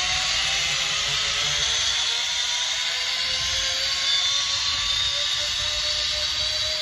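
Zip-line trolley pulleys running along the steel cable, a steady whine that rises slowly in pitch, over wind rushing across the microphone.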